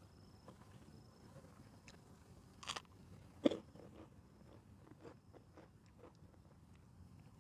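Close-miked eating: quiet chewing with small mouth clicks, a short crunchy bite about two and a half seconds in and a sharper click a second later.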